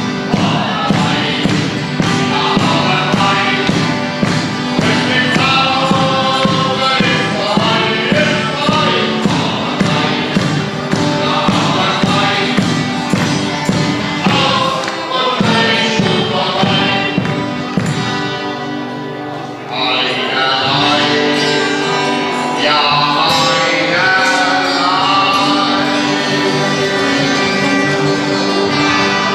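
A live carnival song sung by several voices with band accompaniment, and the hall audience clapping along to the beat. About fifteen seconds in the bass drops out and the music thins, dipping just before twenty seconds, then comes back fuller and brighter.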